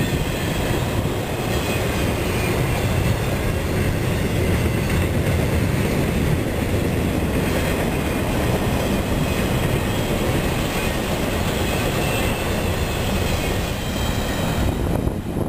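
Intermodal freight cars, loaded with trailers and containers, rolling past at speed: a steady, loud rumble and rattle of steel wheels on rail. It drops away near the end as the last car goes by.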